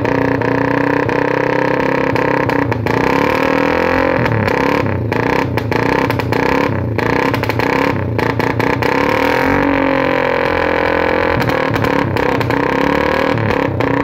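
Suzuki Raider 150's single-cylinder four-stroke engine running through an open pipe and being revved a few times, with rapid sharp pops and crackles in the exhaust. The pops come from a remote-controlled rapid-backfire ignition relay set to its idle-rumble and rapid modes.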